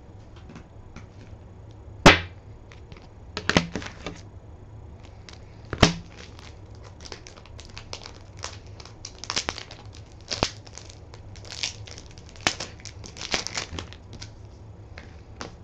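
Crinkling and rustling of a mail package's wrapping and plastic sleeves being handled, broken by sharp clicks; the loudest clicks come about two seconds in and about six seconds in.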